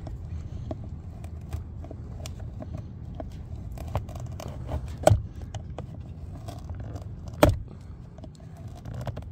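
Flathead screwdriver scraping and clicking against the plastic courtesy-lamp lens and door trim of a 2003–2011 Lincoln Town Car as it is worked in to pry the lens out, with two sharper knocks about five and seven and a half seconds in.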